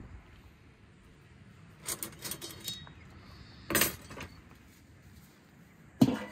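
Metal clinking and clanking as steel kebab skewers and a stainless steel colander are handled on a wooden table. There are a few light clinks about two seconds in, a louder clank just before four seconds, and a sharp clank at the very end.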